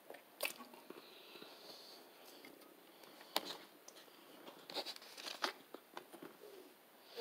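Faint eating and handling noises: scattered sharp clicks and short crinkles, the loudest a click a little over three seconds in, with a plastic water bottle handled and drunk from near the end.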